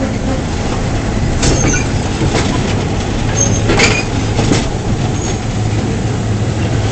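Passenger train carriages rolling slowly past close by on a wooden railway trestle: a steady rumble and low hum, with a few sharp, irregular clacks and faint brief squeaks from the wheels on the rails.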